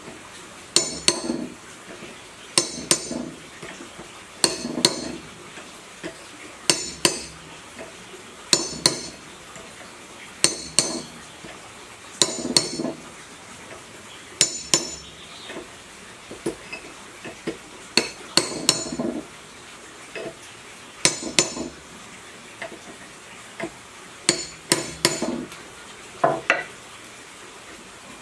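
Hammer blows on a steel drift held against a metal shaft, each a quick double clank with a high metallic ring, repeating about every two seconds. Near the end the rhythm breaks into a few lighter knocks.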